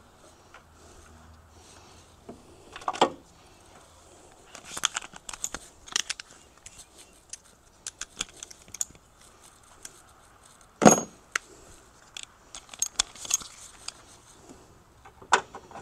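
Irregular metallic clinks and clatter of hand tools and bolts against the steel mounting bracket of a Honda Accord's VSA (ABS) modulator as its 10 mm bracket bolts are taken out. One louder clank comes about two-thirds of the way through.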